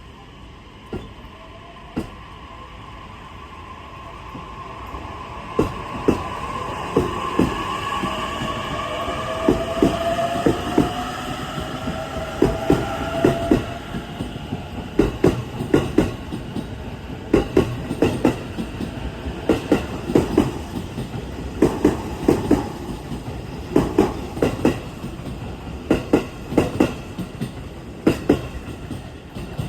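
E531-series electric multiple unit pulling away from a station: its traction motors whine, rising in pitch as it accelerates, while the wheels clack over rail joints in pairs that come faster and faster.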